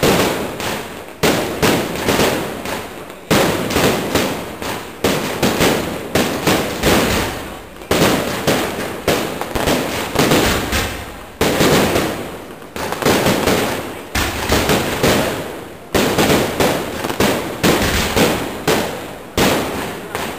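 Close-range aerial fireworks display: a continuous barrage of shell bursts and sharp bangs, several a second, coming in loud volleys that each trail off before the next.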